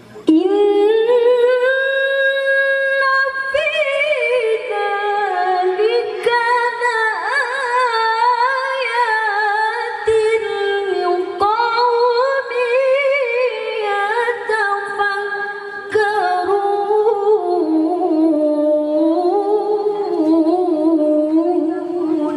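A woman's voice reciting the Qur'an in melodic tilawah style into a microphone: long, richly ornamented phrases that begin sharply just after the start, with a brief dip in the middle, and settle lower in pitch toward the end.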